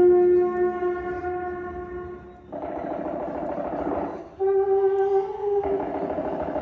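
A sustained horn-like note that dies away and sounds again about halfway through. It alternates with two stretches of rough, hissing noise.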